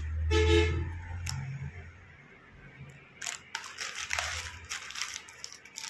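Handling noise as plastic jewellery pouches are moved about: a short low thump with a brief buzzing tone in the first second, then scattered light clicks and rustles from about three seconds in.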